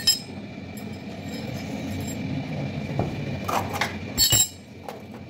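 Metal steering parts clinking and knocking as they are handled: a few sharp clicks, with the loudest pair about four seconds in, over a steady low background noise.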